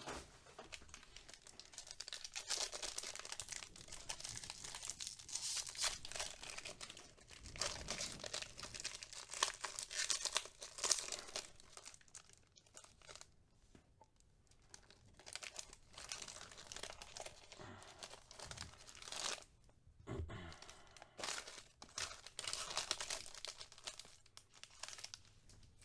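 Plastic and foil card-pack wrapping being torn open and crinkled by hand as a box of trading cards is opened, in irregular bursts of rustling with short pauses.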